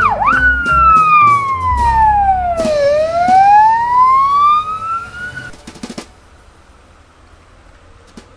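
Toy police car's electronic siren: a fast yelp at the start switches into one slow wail that falls and rises again, stopping about five and a half seconds in. A couple of clicks follow soon after.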